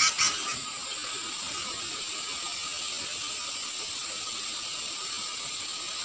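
Steady hiss of background noise, with a faint band of tone in it, after a short sharp sound right at the start.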